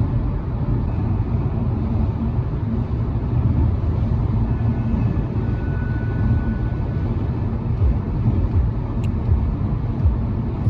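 A car driving, a steady low rumble of road and engine noise, with a single sharp click about nine seconds in.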